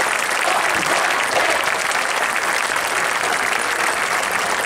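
Large crowd in the stadium stands applauding steadily, a sustained round of clapping.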